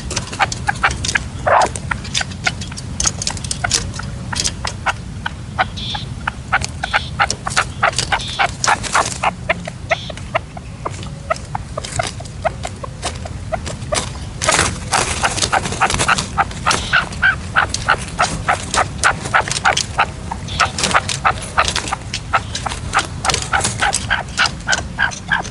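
Red-legged partridges calling: a long, quick run of short repeated notes, about four a second, from a caged decoy male and a wild partridge close beside it.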